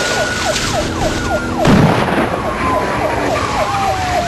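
Police siren wailing, its pitch rising over about a second and then falling slowly, overlaid with a second, faster tone that drops in pitch about four times a second. A heavy thump cuts in about a second and a half in.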